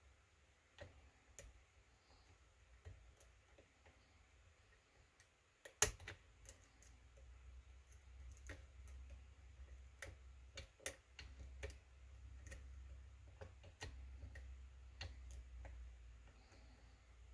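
Lock picks working the pins of a kick cylinder lock: faint, irregular small metallic clicks and ticks, with one sharper click about six seconds in and a low rumble of handling after it.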